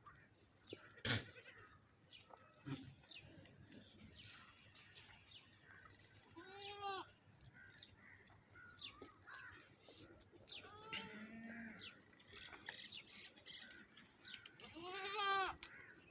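Goats bleating, three separate calls, the last near the end the loudest. A sharp knock about a second in.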